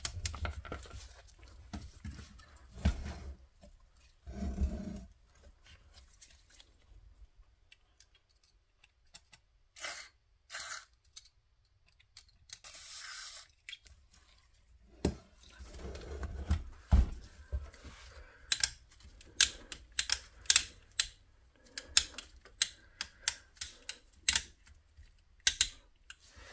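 Aerosol contact cleaner sprayed onto an old radio's switch contacts in a few short hisses near the middle, the longest about a second. Many light clicks and taps come with it, in a quick run over the last several seconds.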